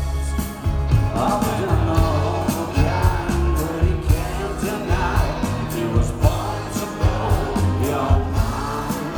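Live rock band performance heard from within the audience: a man singing lead over the band, with a steady drum beat and heavy bass.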